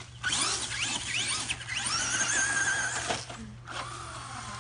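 Electric motor of a radio-controlled truck whining. The pitch rises and falls in several quick sweeps as the throttle is worked, then holds steady, and a lower steady whine follows near the end.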